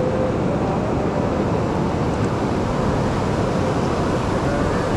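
Fast-flowing mountain stretch of the Ganga (Bhagirathi) rushing steadily over boulders, heard close to the water as a bottle is held under the current.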